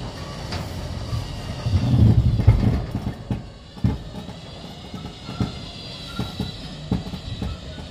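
Kia Sonata being winched up the tilted bed of a rollback tow truck on a V-chain with axle hooks, heard from inside the car: a low rumble with clunks and knocks, heaviest about two seconds in, with a sharp knock near four seconds, over a thin steady high tone.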